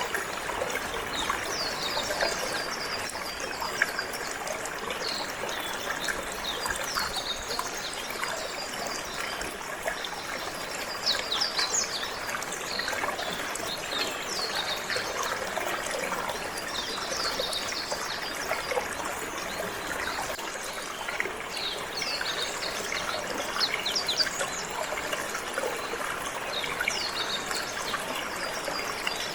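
Water trickling and flowing steadily, with canaries chirping over it in short runs of quick chirps every few seconds.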